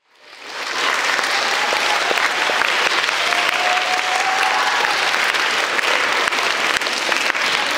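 Audience applauding steadily, fading in over about the first second.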